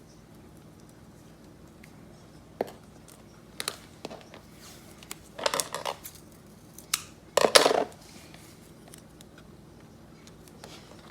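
Small objects being handled on a workbench: scattered clicks and taps, with two short rasping bursts around the middle, the second the loudest.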